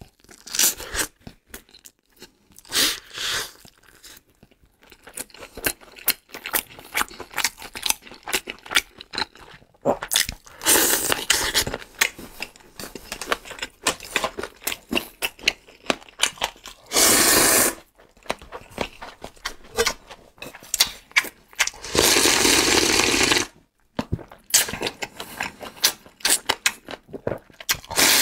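Close-miked eating: wet chewing and biting on roasted Orleans-style chicken wings, with many small clicks, broken by several long noodle slurps, one of them near the end.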